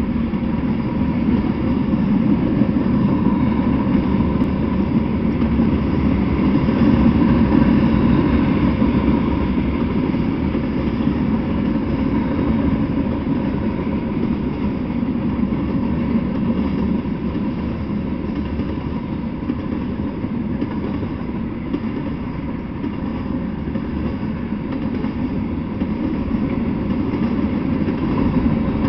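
Freight train cars rolling past at a steady speed: the continuous noise of steel wheels running on the rails, swelling a little about a quarter of the way in.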